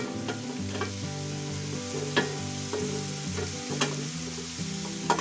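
T-bone steak and mixed vegetables sizzling in a frying pan, with a few sharp clicks of a utensil stirring them.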